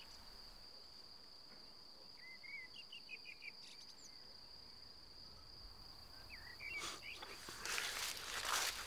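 Faint rural meadow ambience: an insect's steady high trill, with a few short bird chirps over it. Near the end, footsteps and rustling in grass grow louder.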